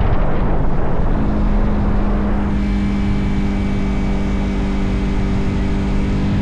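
Motorcycle engine running with wind rushing over the microphone. A little over a second in, a steady engine hum comes through; from about two and a half seconds the wind noise drops away and leaves the engine note clear, until the rush of wind comes back at the end.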